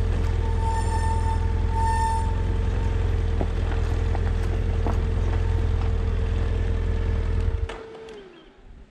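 BMW F800GS parallel-twin motorcycle running at low speed over a rough, stony dirt track, with heavy low rumble on the helmet microphone, a steady whine, and small stones clicking. Two short high beeps come about a second in and again a second later. Near the end the engine sound cuts off suddenly as the bike is switched off, and the whine drops away just after.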